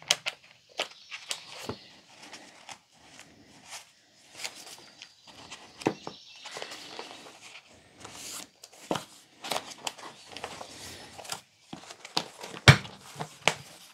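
Hands handling a goatskin-bound Bible: irregular rustling with soft taps and clicks, and a couple of sharper clicks near the end.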